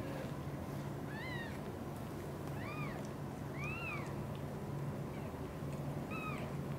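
Newborn British Shorthair kittens mewing: four short, high-pitched mews spread over the few seconds, each rising then falling in pitch.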